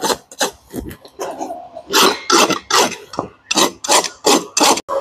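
Farrier's rasp scraping across a horse's hoof wall in quick back-and-forth strokes, about two or three a second, filing down the nail clinches so the old shoe can be pulled.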